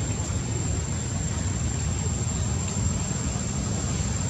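Steady low rumbling outdoor background noise with a thin, constant high-pitched whine above it.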